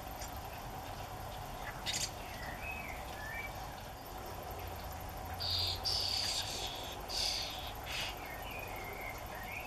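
Starling nestlings begging with short, harsh, hissing calls, loudest in a cluster about five to six seconds in as a parent arrives at the nest hole, with a few soft chirps between.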